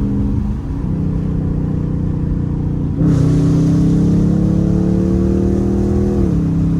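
Dodge Charger R/T's 5.7-litre Hemi V8 exhaust under way. About three seconds in it comes on throttle and gets louder, its pitch rising steadily as the car accelerates, then the pitch drops sharply at an upshift near the end.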